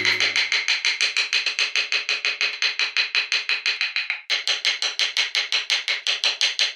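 Fast, even tapping on a small carving chisel, about seven light strikes a second, as it cuts along a pencilled line in the wood. The taps pause briefly a little after 4 s, then carry on.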